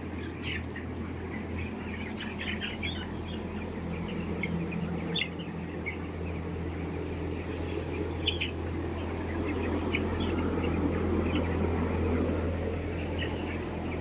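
A flock of poultry calling: many short squawks and chirps, overlapping at random, over a steady low hum.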